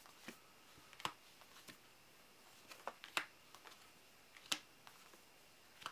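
Glossy jumbo playing cards being flipped off the deck one at a time: quiet, sharp flicks and slides of card stock at irregular gaps of about a second, the clearest two around the middle.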